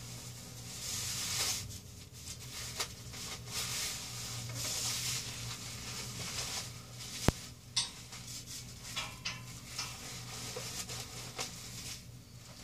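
Clothing rustling and a disposable diaper's plastic cover crinkling as shiny shorts and track pants are pulled and adjusted at the waist, with a sharp click about seven seconds in, over a low steady hum.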